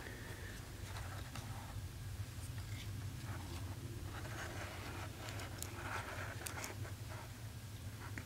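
Faint handling noise as a wristwatch with a leather strap and stainless steel case is turned over in the hands inside a neoprene case: soft rubbing and scratching with a few light clicks, over a steady low hum.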